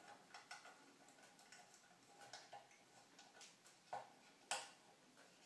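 Faint, irregular metallic clicks and scratches of a thin metal pin worked in a small hole in a chrome shower valve cover plate, with two sharper clicks about four seconds in.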